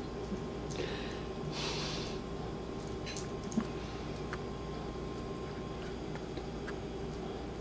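Faint sounds of a Westie puppy chewing and tugging at her leash: a couple of short breathy snuffles about one and two seconds in, then a few small clicks, over a steady low hum.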